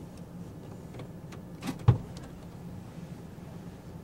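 Steady low hum of an idling vehicle, with two light clicks and then a single sharp knock just under two seconds in.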